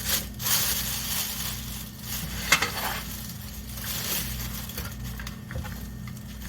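Handling noise from unboxing a circular saw: packaging rustling and scraping, with light knocks and a sharp click about two and a half seconds in.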